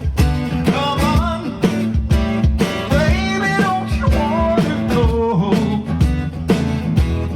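A live band playing an instrumental passage: a lead line with bending notes over guitar, bass and a steady drum beat.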